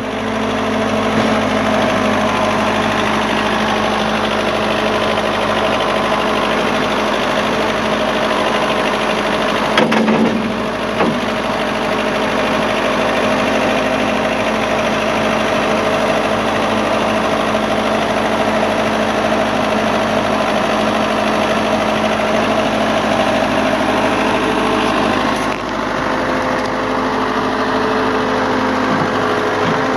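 Case 580D backhoe's engine running steadily while the operator works the hydraulic boom and bucket. There is a brief thump about ten seconds in, and the engine note eases slightly near the end.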